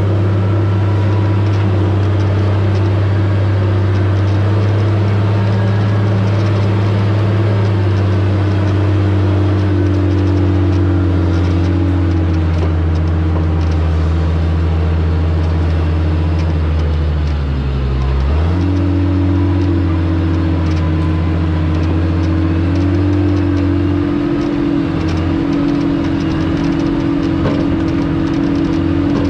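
Diesel engine of a John Deere logging machine running steadily under work, its pitch sagging briefly about two-thirds of the way through and then picking back up.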